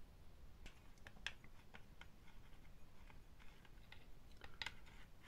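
Near silence with a few scattered faint clicks and taps from small glassware being handled on a table.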